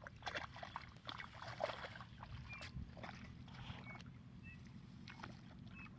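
Faint splashing and knocking in shallow water, with a few short high chirps in the background.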